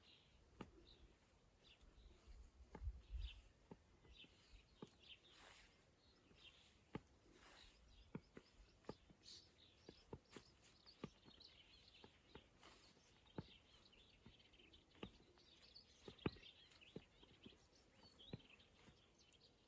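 Faint songbirds chirping and calling, short high notes scattered throughout, with many sharp clicks and a brief low rumble about three seconds in.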